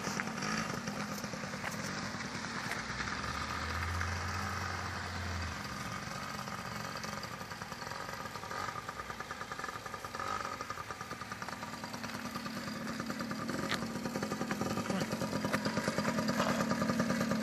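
Engine of a small children's dirt bike running steadily while ridden, heard from a distance. It grows louder near the end as the bike comes closer.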